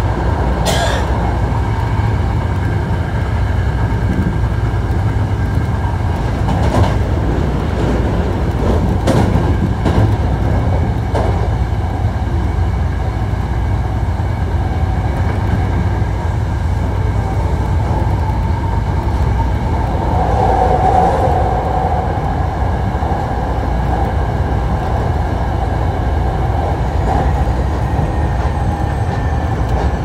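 Hankyu 1300 series electric train running at speed, heard from inside the car: a steady rumble of wheels on rail under a steady whine from the Toyo IGBT inverter-driven motors. A few sharp clacks come in the first dozen seconds, and a brief stronger tone comes about two-thirds of the way through.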